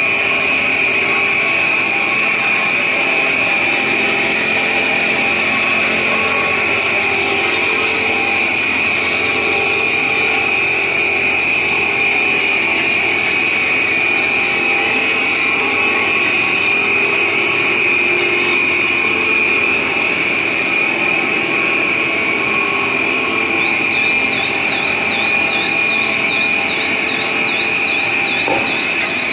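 2400 mm stretch film production line and winder running: a steady mechanical din with a constant high whine. A warbling high tone joins in near the end.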